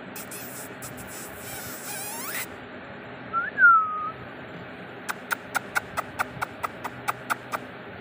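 A kitten mews once, a short call that rises then falls, about halfway through. From about five seconds in, a steady run of short ticks follows, about four a second.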